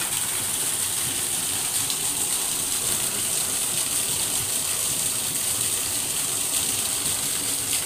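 Thin streams of water pouring down into a deep open stone-lined well and splashing onto the water below, a steady gushing hiss. It is runoff from heavy rain, filling and recharging the well.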